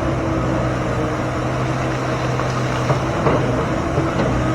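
An engine running steadily, with a few short knocks about three seconds in.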